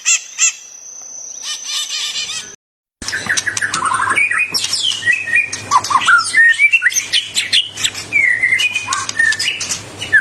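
Songbirds singing: rapid repeated chirps for the first couple of seconds, a brief silence, then a dense song of varied whistled notes sliding up and down, with a low steady hum underneath.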